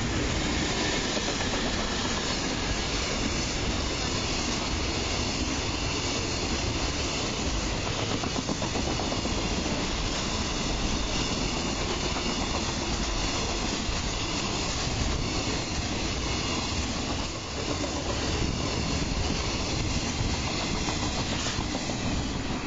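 JR Freight container train running past close by: an EF210 electric locomotive with an unpowered EF65 in tow, then a long string of Koki container flatcars, their wheels rolling on the rails in a loud, steady rush of noise.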